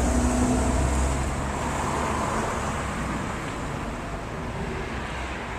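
Road traffic noise: a steady low rumble of passing vehicles that slowly fades.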